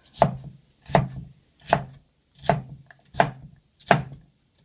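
Kitchen knife chopping potato into small cubes on a cutting board: six steady strikes, about one every three quarters of a second.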